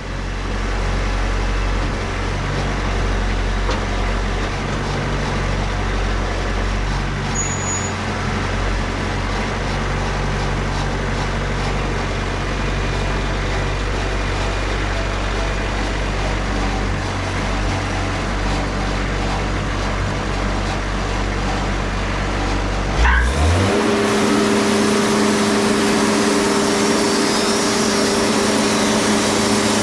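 Diesel engine running steadily under load, with a low hum. About 23 seconds in the sound changes abruptly, with a brief rising whine, to a steadier, higher-pitched drone.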